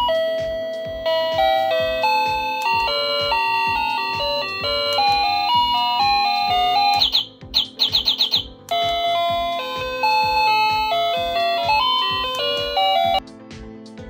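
Wireless doorbell receiver playing its electronic chime melody through its small speaker. About seven seconds in, the tune gives way to a quick run of about six bird-like chirps, then the melody resumes and stops about a second before the end. A quieter background tune with a steady beat carries on underneath.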